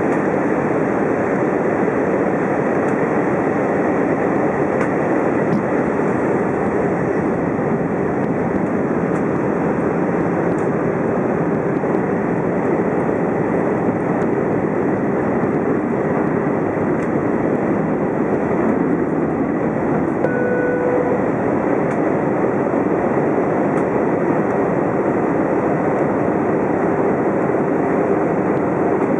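Steady cabin noise of an Airbus A320 descending to land, heard from a window seat beside the engine: an even rush of engine and airflow noise. A short tone sounds briefly about twenty seconds in.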